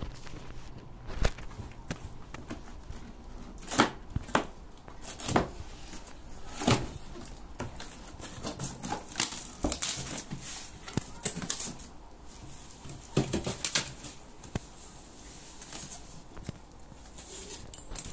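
Cardboard shipping box being opened and handled: irregular taps, scrapes and rustles as the lid and flaps are pulled open.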